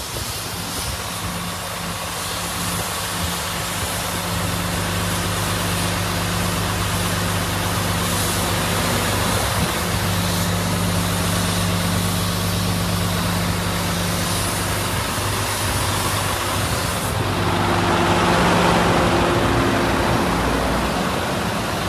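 Heavy truck's diesel engine running slowly and steadily, a low even hum, with a louder rushing noise swelling for a few seconds near the end.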